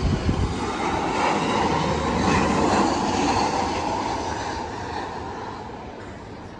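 Light rail vehicle running, heard from inside the passenger car: steady wheel-on-rail and running noise that swells about two seconds in, then gradually fades.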